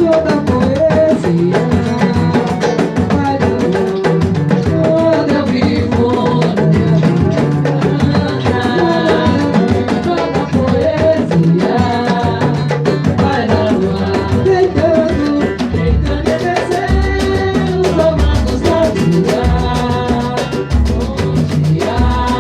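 Batucada percussion ensemble playing a driving rhythm on drums and hand percussion, with a sung melody over it. Deep bass-drum strokes stand out in the second half.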